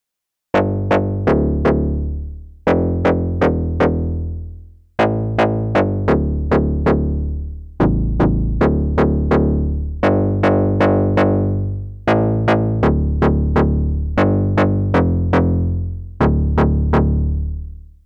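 Newfangled Audio Pendulate software synthesizer playing its "Dirt Bass" preset as a repeating bass riff. Phrases of several quick, sharp note attacks arrive about every two seconds, each dying away before the next, with the low bass note stepping up and down between phrases.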